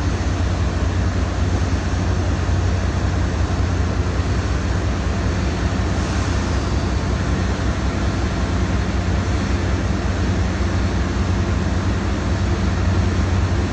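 Heavy machinery running at a steady drone: a strong deep hum with a few steady tones above it and an even hiss, unchanging throughout.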